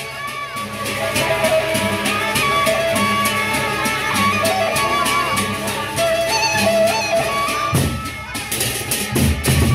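Gendang beleq ensemble playing: large barrel drums beaten over fast, steady clashing of hand cymbals, with a high melody line wavering in pitch above them. The drums thin out briefly near the end, then come back in strongly.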